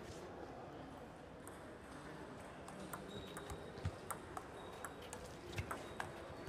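Table tennis rally: the ball knocking back and forth off the bats and the table in a string of light, sharp clicks, a few a second. The clicks start about three seconds in, over a faint background of the hall.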